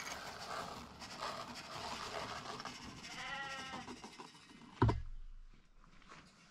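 Grain scattered into a hollowed-log wooden trough, pattering and rattling on the wood. A short animal bleat comes about three seconds in, and a sharp knock, the loudest sound, near five seconds.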